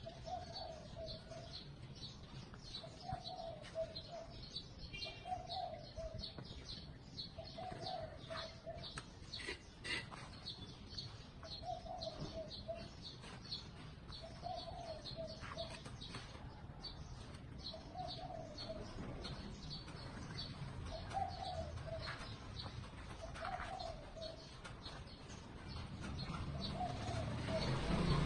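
A bird repeating a short low call over and over, about once every two seconds, over faint rapid high chirping and a few brief clicks; a low rumbling noise swells near the end.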